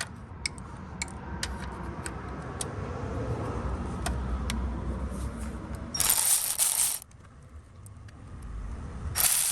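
Hand tools on the transmission oil pan bolts: small metal clicks and clinks of a ratchet, socket and loosened bolts, broken by two louder, harsher bursts about a second long, one about six seconds in and one near the end.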